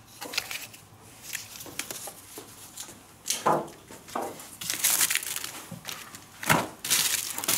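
Fireworks packets and their paper and plastic wrappers handled inside a cardboard box: rustling and crinkling, with two sharper knocks, one midway and one near the end.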